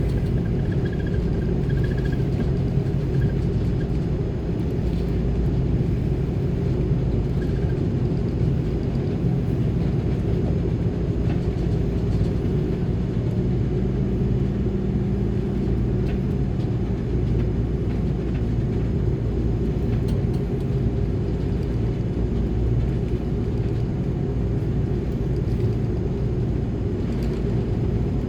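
Steady low rumble of an Airbus A330-300 with Rolls-Royce Trent 700 engines, heard inside the passenger cabin, with a few steady hums under it.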